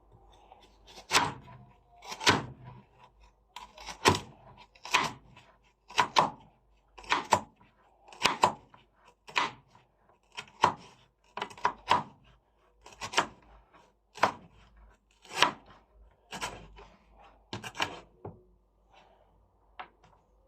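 Knife slicing a carrot thinly on a cutting board: a slow series of sharp knocks, about one a second.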